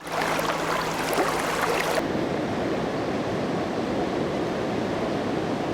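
River water rushing steadily; the sound shifts slightly about two seconds in.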